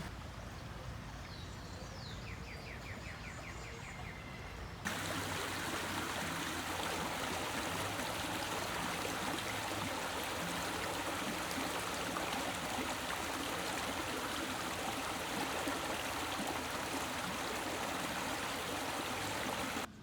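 Hill Country stream water running and splashing over rocks. It is softer at first, with a brief high trill a couple of seconds in. About five seconds in it changes abruptly to a louder, fuller rush of water.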